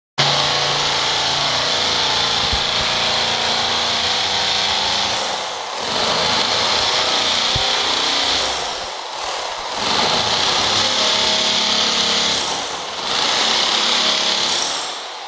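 Metabo drill running under load with a flat scraper chisel bit, grinding dried carpet glue off a concrete floor. The noise is loud and continuous, eases briefly three times, and dies away near the end.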